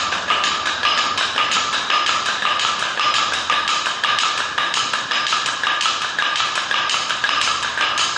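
Chenda melam: an ensemble of Kerala chenda drums struck with sticks in a fast, continuous rhythm, with a steady ringing tone over the drumming.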